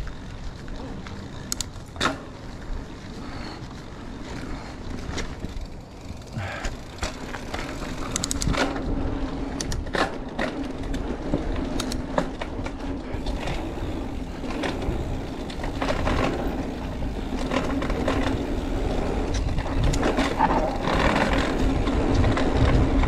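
Mountain bike riding a dirt trail: low wind rumble on the microphone, the tyres humming steadily on the dirt, and frequent sharp rattles and clacks from the bike over bumps. The sound grows louder toward the end.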